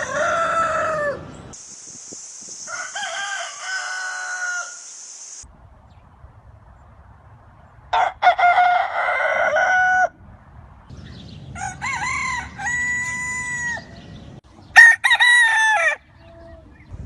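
Roosters crowing one after another: five separate crows of one to two seconds each, cut together from different recordings. A steady high hiss runs behind the second crow.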